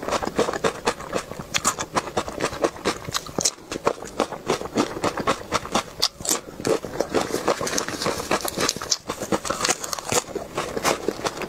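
Close-miked mouth chewing, wet and crunchy, with irregular clicks and smacks several times a second: ASMR eating of cucumber slices and cherry tomatoes.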